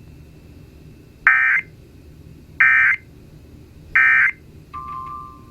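Emergency Alert System end-of-message signal from a NOAA Weather Radio broadcast: three short, loud digital data bursts about 1.3 seconds apart, marking the end of the warning. A steady beep starts near the end.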